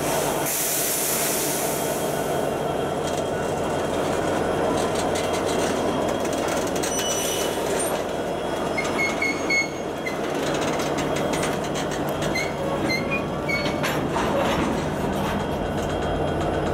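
Freight train's tank cars and covered hopper rolling past: a steady rumble of steel wheels on rail. Brief high-pitched wheel squeals come through a few times in the second half.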